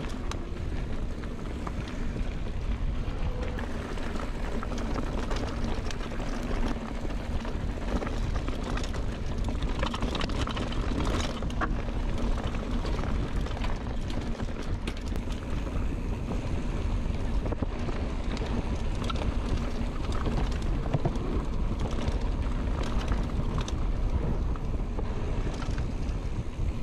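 Mountain bike descending a fast dirt flow trail: tyres rolling, with frequent small clicks and rattles from the chain and frame over bumps, under constant wind noise on the camera microphone.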